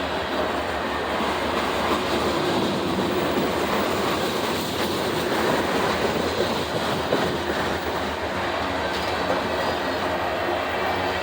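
Freight cars of a CSX train rolling past close by: a steady, unbroken noise of steel wheels running on the rails.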